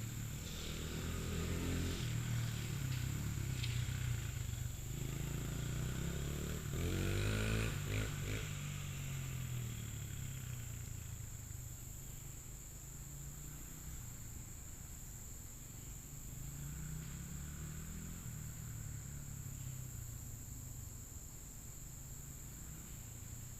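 Honda CRF100F dirt bike's four-stroke single-cylinder engine running through its stock exhaust end cap as the bike is ridden, revving up and down. It is loudest in the first several seconds with quick revs around seven seconds in, fades about ten seconds in, and comes back faintly later.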